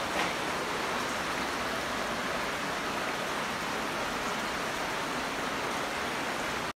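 Steady rushing of running water in a cave, with a small knock just after the start.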